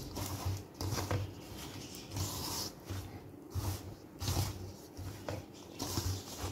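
A hand rubbing and pressing flour mixed with ghee and soaked semolina in a bowl. A rhythmic rustle of strokes comes roughly one to two a second, each with a dull thud.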